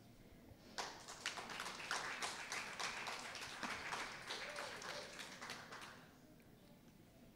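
A small crowd clapping for about five seconds, the separate hand claps easy to pick out. It starts about a second in and dies away near the end.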